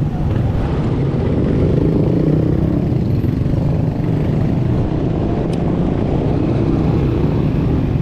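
Steady low rumble of wind and road noise on a GoPro microphone while riding a bicycle along a road.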